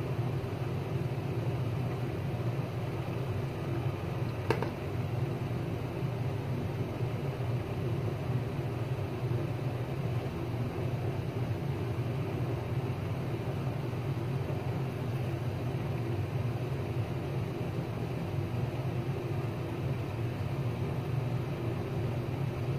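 Steady low background hum with a faint hiss, unchanging throughout, with a single short click about four and a half seconds in.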